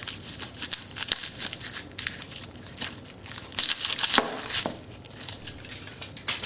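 Chef's knife sawing the top off a whole garlic bulb: the bulb's dry papery skin crackles and crunches in irregular bursts under the blade, loudest a little after halfway. A crinkle of aluminium foil joins near the end.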